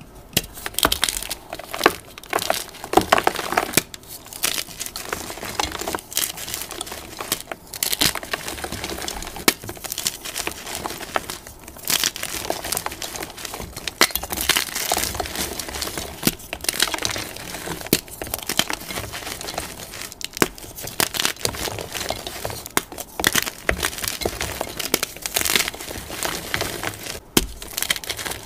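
Blocks of plain gym chalk (magnesium carbonate) crushed and crumbled in bare hands: continuous crunching and crackling with many sharp snaps as the blocks break apart into powder.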